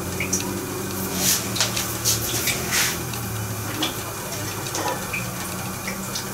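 Enamel kettle heating on a lit gas burner: a steady low hum with a watery rush and scattered sharp ticks and crackles.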